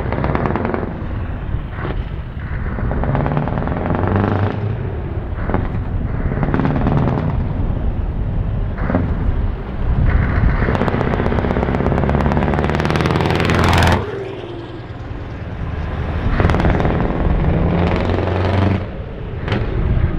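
Scania 4-series truck's diesel engine revved hard and very loud in repeated bursts as the tractor unit pulls away and drives past. The longest rev climbs in pitch for about four seconds and then cuts off sharply, followed by two shorter rises near the end.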